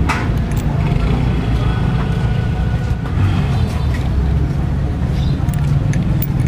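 A motor vehicle engine running steadily, a low rumble with no pauses.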